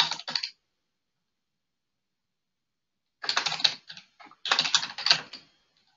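Typing on a computer keyboard: a short flurry of keystrokes at the very start, then silence, then a fast run of keystrokes from about three seconds in.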